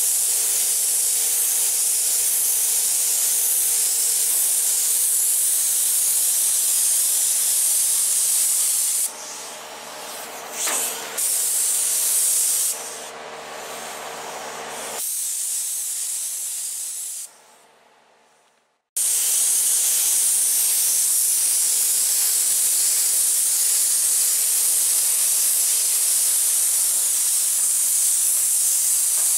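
Compressed-air paint spray gun spraying epoxy primer: a loud, steady hiss of air and atomised paint. About nine seconds in it drops away, with a couple of short bursts, falls almost silent, and starts again just before twenty seconds.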